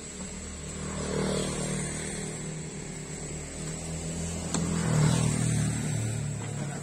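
A motor vehicle's engine going past, growing louder to a peak about five seconds in and then fading, with one sharp knock just before the peak.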